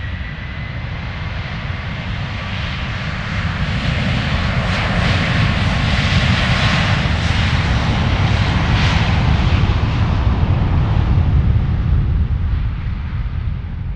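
Twin-engine jet airliner taking off and climbing overhead: a thin engine whine at the start over a steady jet roar that swells to its loudest midway and eases off toward the end.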